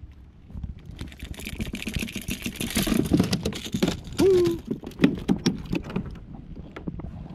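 Rapid clicks and rattles of a hooked topwater lure and pliers being handled over a plastic kayak deck as a small redfish is unhooked, with a scraping hiss in the first seconds and a short hum about four seconds in.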